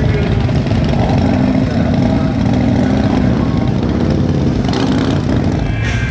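Motorcycle engines running in rally street traffic, a steady low rumble.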